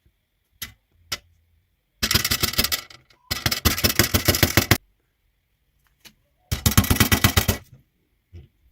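Three bursts of rapid, even rattling, each a second or so long, with a few single clicks between them: a workshop tool at work on the saw.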